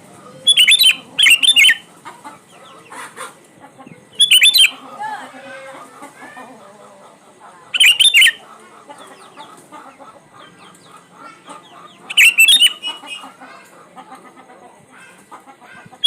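Sooty-headed bulbul (kutilang) singing short, loud whistled phrases, five in all: a close pair near the start, then single phrases every few seconds. Softer bird chatter goes on underneath throughout.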